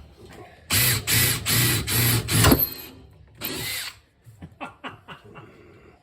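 Power drill boring mounting holes into metal, run in several short trigger bursts and then one more brief burst about three and a half seconds in, followed by a few faint clicks.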